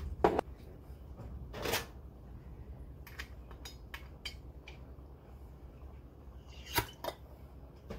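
A few sharp clicks and knocks of glass jars and empty tin cans being handled on a kitchen counter, the clearest near the start, at about two seconds and just before the end, with lighter ticks in between over a low steady hum.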